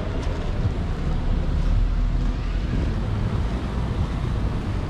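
Steady low rumble of wind on the microphone, mixed with road traffic noise.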